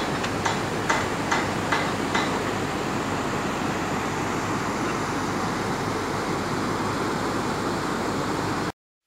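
Steady rush of a shallow river running over rocks and small rapids, with a run of sharp clicks about two or three a second in the first two seconds. The sound cuts off suddenly near the end.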